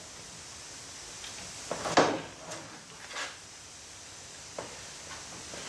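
A few sharp metal knocks and clanks from tools and engine parts while the oil drain line is being disconnected, the loudest about two seconds in, with two lighter knocks after it.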